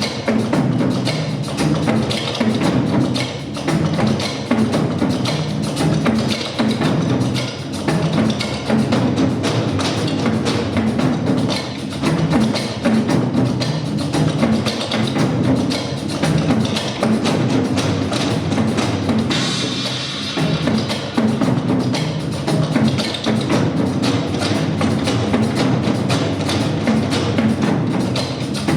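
Korean nanta drumming ensemble playing a fast, continuous rhythm on drums.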